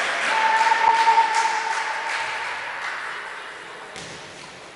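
Handball game noise echoing in a sports hall: shoes and ball knocking on the court floor and distant voices. A steady high tone is held for about two seconds in the first half, and the noise dies down toward the end.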